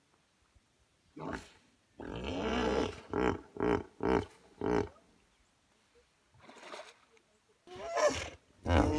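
Hippopotamuses calling from the water. There is a long drawn-out call, then a rhythmic run of four short honking grunts about two a second. Near the end comes another call and the start of a new series of grunts.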